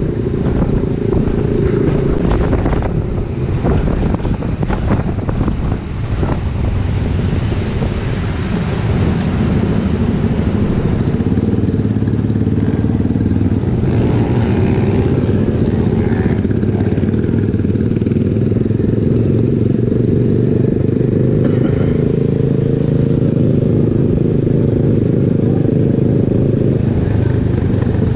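Honda Forza 300 scooter running at cruising speed among a group of motorcycles, heard through a steady low rumble of wind on the action camera's microphone. There are a few short rattles in the first several seconds.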